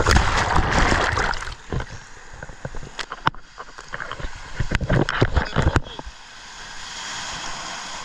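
Breaking ocean wave crashing over a GoPro in its waterproof housing, muffled by the case: a loud rush of churning water at the start, then sharp splashes and knocks of water against the housing, and near the end a steadier hiss of surf.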